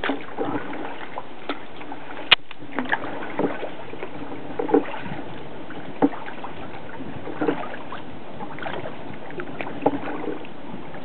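Kayak paddle strokes splashing and dripping in the water, a splash every second or so over a steady hiss, with one sharp knock a little over two seconds in.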